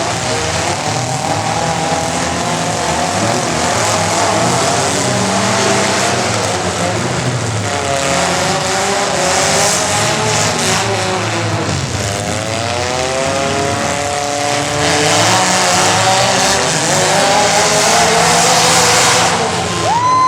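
Compact truck engine running hard at high revs, its pitch rising and falling repeatedly. A steady high tone starts near the end.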